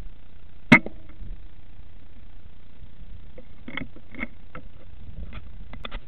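A single sharp shot from a Weihrauch HW100 KT PCP air rifle about a second in, followed by several quieter clicks later on, over a steady low rumble.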